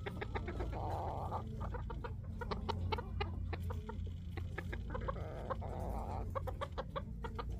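Bantam chickens clucking in a rapid run of short notes, with two longer hoarse stretches, one about a second in and one about five seconds in, over a steady low hum.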